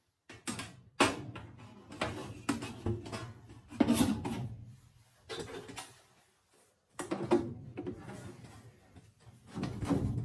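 Irregular knocking and rubbing of things being handled, with several sharp knocks and scraping between them and a short pause about two thirds of the way through.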